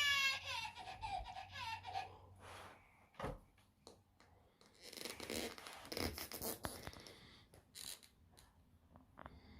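A talking baby doll's recorded electronic cry wavering and trailing off over the first two seconds, followed by scattered clicks and scraping or rustling as the doll and its things are handled.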